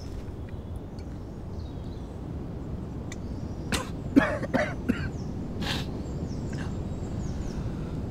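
A water canteen being handled and opened: a handful of short clinks and knocks about four to five seconds in, over a steady low outdoor rumble.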